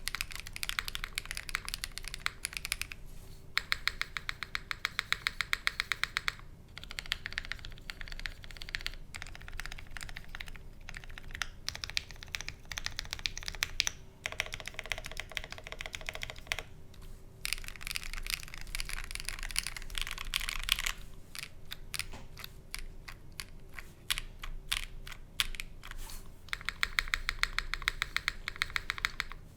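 Typing on an OwlLabs Mr. Suit mechanical keyboard with lubed Quartz switches, a plastic plate and GMK Kaiju keycaps: runs of fast keystrokes lasting a few seconds each, separated by short pauses.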